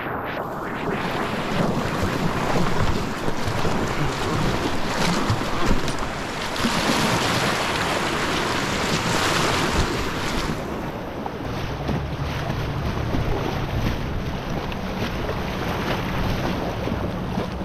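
Riffle water rushing and splashing around an inflatable kayak as the paddle blades dip in, with wind buffeting the microphone. The rush of water is loudest about seven to ten seconds in.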